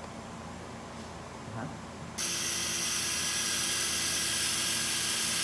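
Powered surgical drill switching on about two seconds in and running steadily with a hissy whir, boring the hole for a suture anchor in the shoulder's glenoid socket.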